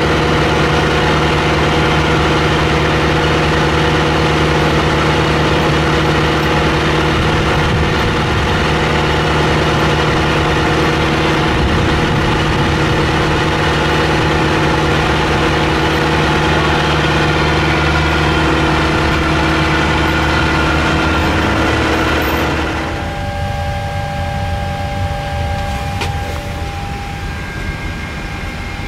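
Steady engine drone with several held tones, like a machine idling. About three quarters of the way through it cuts off abruptly to a quieter steady hum with a couple of faint held tones.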